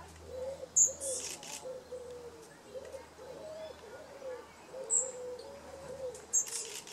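A European robin fledgling gives three short, high-pitched begging squeaks while being fed by the adult. Behind them a pigeon coos steadily in a low, wavering run.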